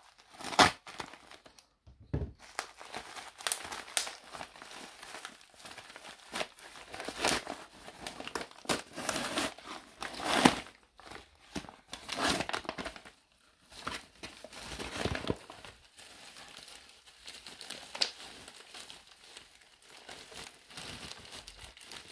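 Paper and plastic packaging crinkling and rustling in irregular bursts as a mailer envelope is cut and its wrapping pulled open by hand.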